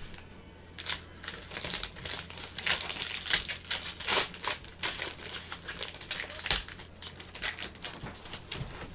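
Plastic wrapper on a pack of football trading cards crinkling in irregular crackles as gloved hands handle and open it.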